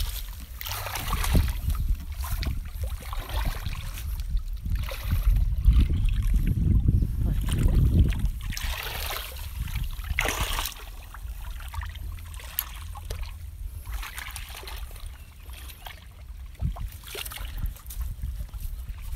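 Muddy shallow water sloshing and splashing as a person wades through it and gropes in the mud by hand, in irregular swishes that are busiest in the first half. A steady low rumble runs underneath.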